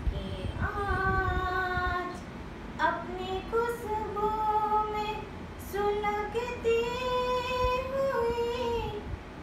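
A woman's solo voice singing an Urdu poem in tarannum style, in long held notes that slide between pitches, phrase by phrase with brief breaths between.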